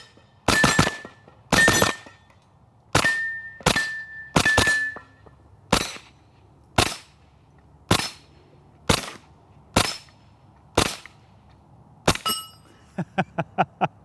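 Suppressed shots from a Stribog SP9A3G 9mm roller-delayed blowback carbine firing subsonic 9mm through a Griffin Armament Rev 9 suppressor. The shooter fires quick double and triple taps first, and steel plates ring after several of those hits. Single shots then follow about a second apart, with a last quick group and a run of lighter clicks near the end.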